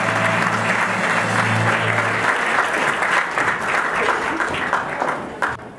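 School-auditorium audience applauding, the clapping thinning and dying away near the end. A low steady tone sounds under it for about the first two seconds.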